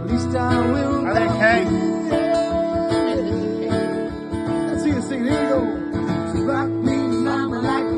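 Music led by a strummed acoustic guitar, with a gliding melody line over a steady accompaniment.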